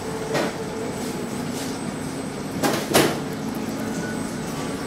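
Fried chicken being handled and eaten from a paper-lined basket: three brief crackly rustles, one just after the start and two close together a little past halfway, over a steady background hum.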